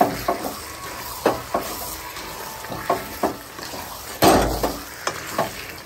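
Metal spoon stirring chicken pieces in sizzling masala gravy in a metal kadhai, with irregular scrapes and knocks against the pan and one louder clank about four seconds in.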